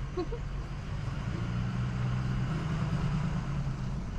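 Pickup truck engine running steadily as the truck drives along a dirt road, heard from inside the cab: a low engine hum with road noise that grows a little stronger about midway.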